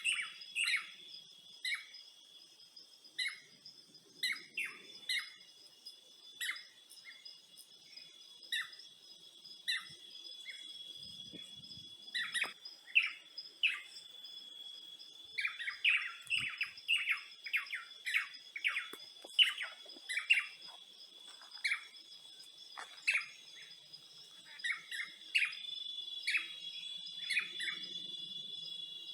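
Many small birds chirping in quick short calls, thickest in the second half, over a continuous high-pitched drone of insects.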